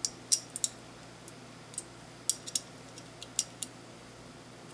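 A screw with red thread locker being tightened into a Knight's Armament URX 3 aluminum rail, giving about a dozen sharp little cracking clicks at irregular spacing. This is the cracking that tells the screw is getting tight and should not be over-tightened.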